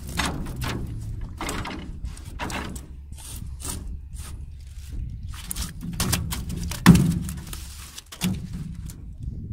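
Freshly caught fish, tilapia among them, flopping in the bottom of a boat: an irregular run of slaps and thumps against the hull, about two a second, with the loudest thump about seven seconds in.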